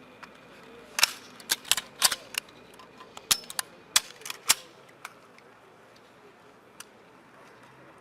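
Rifle shots from several shooters on a firing range, irregular and overlapping: a quick run of about a dozen sharp cracks in the first half, then only a couple of scattered shots.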